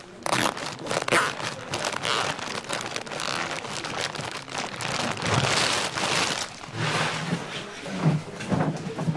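Thick plastic bag crinkling and rustling as it is twisted shut and tied off with a band, with a few low thumps near the end.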